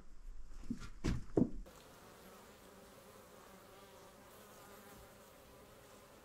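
A few knocks in the first second and a half, then faint steady buzzing of flying insects that starts abruptly.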